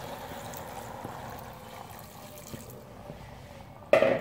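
Water poured from a glass into a clay pot of chopped mustard greens, a steady splashing trickle that fades out after about three seconds. A brief loud sound follows near the end.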